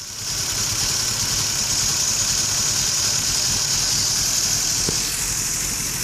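Lexus IS300 engine idling roughly with a misfire, its VVT oil control valve just plugged back in; the car is throwing code P1349, a variable valve timing fault.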